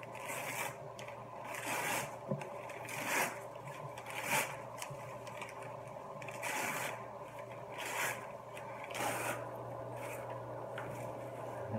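Paper and clear plastic wrapping being crinkled and pulled off a potted plant, in a series of short rustling bursts about a second apart.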